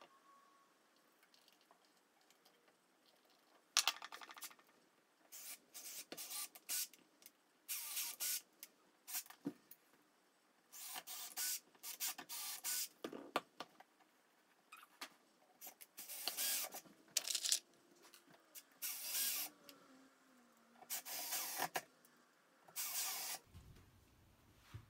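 Power drill running in short bursts, driving screws to fasten a shelf corbel to the wall. There are many starts and stops, each burst lasting well under a second to about a second.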